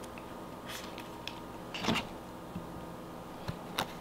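A few light clicks and taps of the white iPhone box and its packaging being handled, the loudest about two seconds in, over a faint steady hum.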